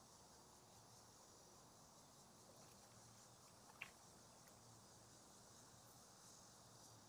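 Near silence: faint steady high-pitched insect hum from the grass, with one short faint tick just under four seconds in.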